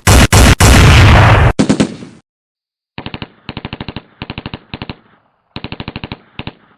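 Toy gun playing gunfire sound effects. A loud, distorted burst of fire lasts about a second and a half. After a short pause come several short bursts of rapid machine-gun rattle.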